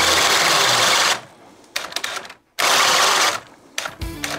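DeWalt DCD996 cordless hammer drill in speed 2 driving a 1.5-inch self-feed bit through a 4x4. It runs loud, stops about a second in, starts again partway through and stops again near the end, struggling under the load: not happy in speed 2.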